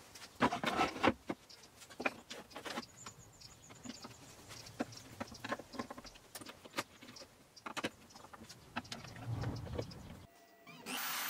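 Handling noises as a wooden workpiece is set on a CNC router's bed and clamped down: scattered knocks and clicks of wood and tools, with a screwdriver turning a clamp screw. The knocks are loudest in the first second or so.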